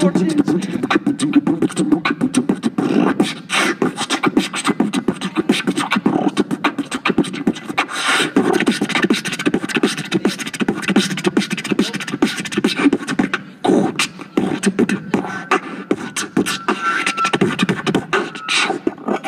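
Beatboxing: a fast vocal drum beat of dense mouth clicks and hits over a low hum.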